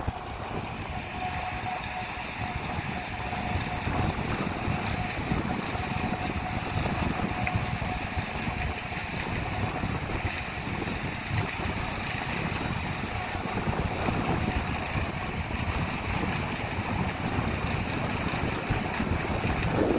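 Harvest machinery running steadily, with wind buffeting the microphone; a faint steady whine sounds over it for the first several seconds.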